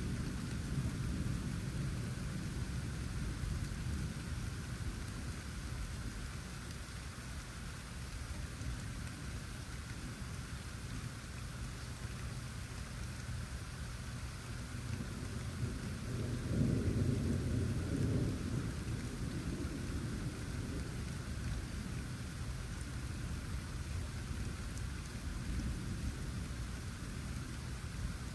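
Steady rain falling, with low thunder rumbling under it. The thunder swells into a louder roll a little past halfway through, then dies back.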